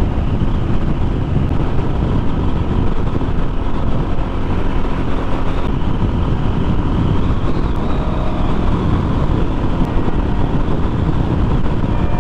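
Royal Enfield Classic 350's single-cylinder engine running steadily at highway cruising speed, mixed with a steady rush of wind and road noise.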